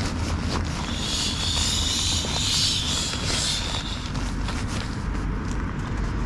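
Nylon fabric rustling as camping kit is stuffed into a stuff sack, loudest for a few seconds about a second in, over a steady low rumble of road traffic.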